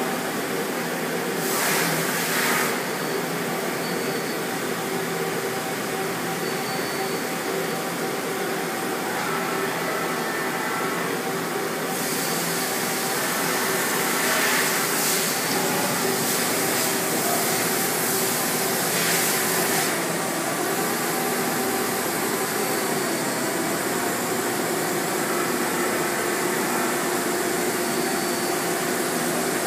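Fortune VTurn 26 II CNC turning center running: a steady mechanical hum and hiss with a few faint steady tones. The high hiss shifts about twelve seconds in and again about twenty seconds in.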